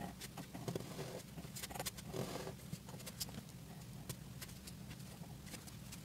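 Pen tip tapping and scratching on paper in quick, irregular strokes, with a longer scratching stroke about two seconds in. A steady low hum runs underneath.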